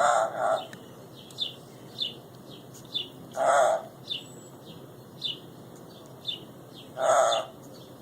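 Pet parrot calling: three loud, harsh calls about half a second each, near the start, midway and near the end. Short falling chirps repeat about twice a second in between.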